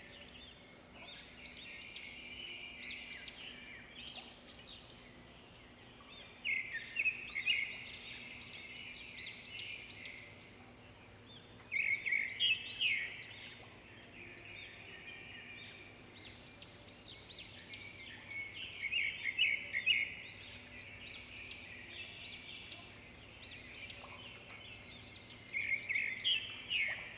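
Duckling peeping: bouts of rapid, short, high peeps lasting a second or a few seconds, several times, with softer scattered peeps in between.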